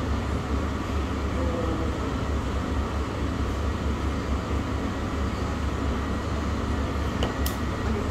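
Steady low background rumble with faint distant voices in it, and two light clicks about seven seconds in.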